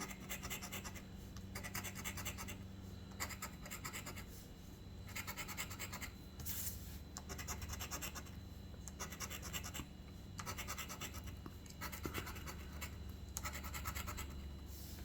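Coin scratching the latex coating off a lottery scratch ticket: rapid back-and-forth strokes in bursts of a second or so, with short pauses between them.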